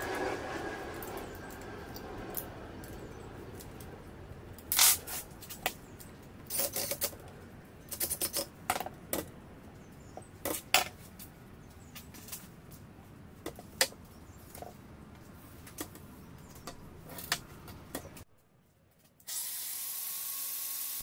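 Scattered metal clicks and clinks as an angle grinder is fitted and adjusted in a homemade steel cut-off stand, with a few louder knocks among them. After a brief gap near the end, a steady hiss sets in.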